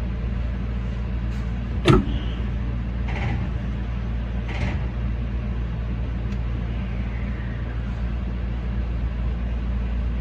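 Steady low hum of a Meitetsu 9500-series electric train standing at a station platform, heard from the cab. A sharp clunk comes about two seconds in, and short hisses follow around three and four and a half seconds.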